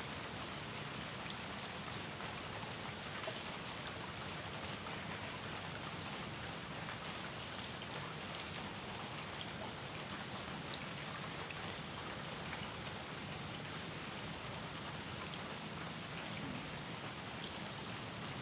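Steady rain falling on a pond, an even hiss with scattered faint drop ticks.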